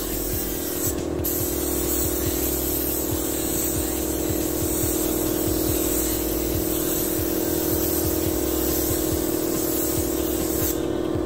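Gravity-feed paint spray gun hissing as silver paint is sprayed onto a bus body panel, over a steady low hum. The hiss breaks off briefly about a second in as the trigger is let go, and stops near the end.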